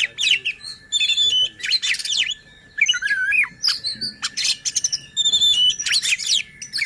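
Oriental magpie-robin (kacer) singing loudly: a fast run of varied whistles, chirps and harsh notes, with a short pause about two and a half seconds in.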